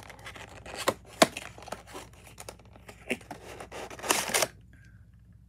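Cardboard model-airplane box being handled and opened: several sharp clicks and knocks, the loudest about a second in, then a short scraping rustle about four seconds in as the contents slide about.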